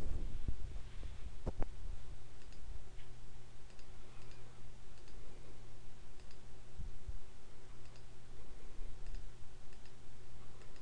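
A few computer mouse clicks, sharp and isolated, one about a second and a half in and another near the middle, over a steady low hum.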